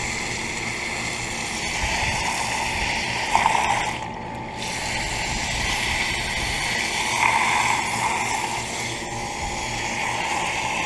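Garden hose spraying water onto a central air conditioner's condenser coil, a steady hiss that briefly cuts out about four seconds in. A steady low hum runs underneath, which fits the other air conditioner running.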